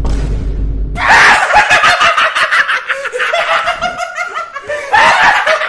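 Men laughing loudly in a rhythmic run of ha-ha bursts, starting about a second in. Before it comes a short burst of noise with a deep rumble.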